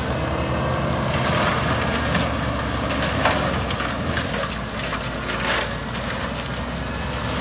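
Kubota skid steer's diesel engine running steadily under load while its forestry mulcher grinds through brush and wood, with crackling and splintering throughout and a sharp crack about three seconds in.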